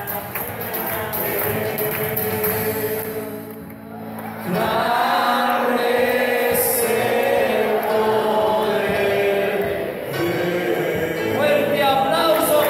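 Congregation singing a hymn with musical accompaniment, dipping briefly about four seconds in and then swelling louder.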